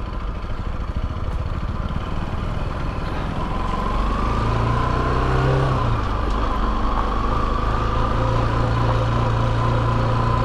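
Motorcycle engine running on the move, with road noise. The engine gets louder and steadier about four seconds in.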